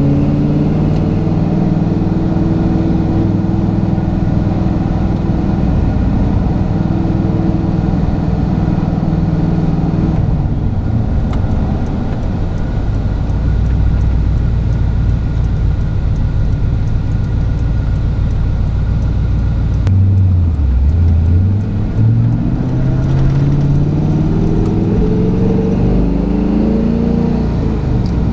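Chevy K10 pickup's engine and road noise heard from inside the cab while driving. The engine runs steadily, eases off about ten seconds in, and its pitch dips and climbs again about two-thirds of the way through. Near the end it rises in pitch as the truck speeds up.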